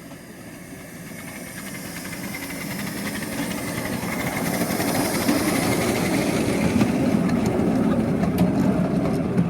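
Miniature ride-on park train approaching, its running rumble and rail hiss growing steadily louder.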